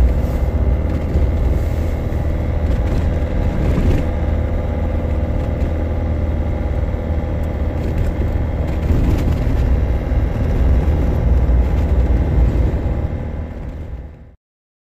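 Steady low rumble of a Land Rover Defender on the move, heard inside the cab: engine and road noise with a constant hum. It fades and cuts off near the end.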